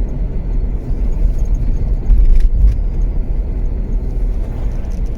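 Steady low rumble of engine and road noise heard from inside a moving vehicle's cabin, with a couple of brief knocks a little over two seconds in.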